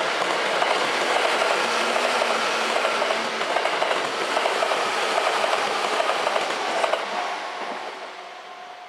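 Seibu 4000 series electric train running past over the points, its wheels clacking over rail joints. The sound fades after about seven seconds as the train draws away, leaving a faint steady high tone.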